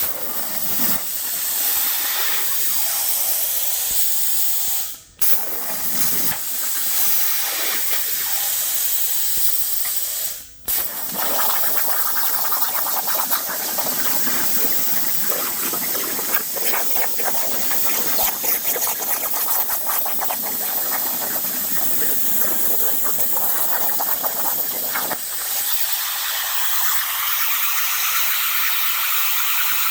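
CNC air-plasma cutter torch hissing steadily as it cuts steel plate. It breaks off suddenly for a moment twice, and sounds rougher and crackly through the middle stretch.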